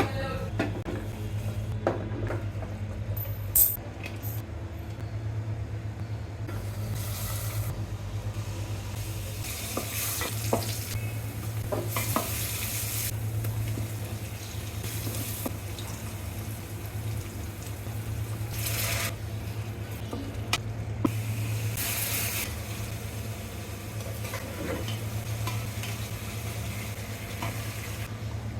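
Food frying in a pan while a spatula stirs and scrapes it, with small clicks of the utensil and the sizzle swelling in several short bursts, over a steady low hum.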